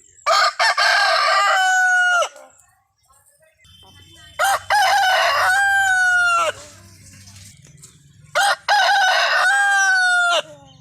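Desi rooster crowing three times, each crow about two seconds long and ending in a drawn-out note that falls away at the end.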